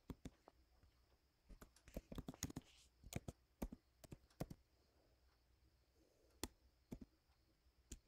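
Faint keystrokes on a computer keyboard: typing in short, irregular runs of clicks, thinning out to a few single taps near the end.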